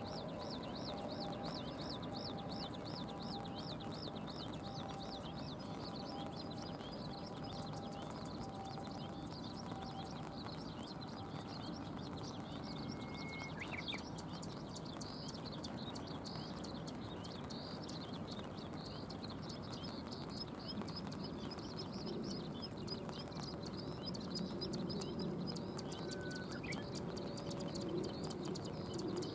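Small birds chirping in quick repeated series, busiest near the start and again in the last third, over a steady hiss of water. A short whistle and a sharp rising chirp come about halfway through.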